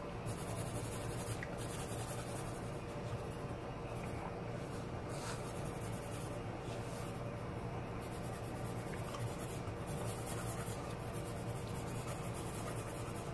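Pencil sketching on paper: scratchy shading strokes that come and go, over a steady low hum.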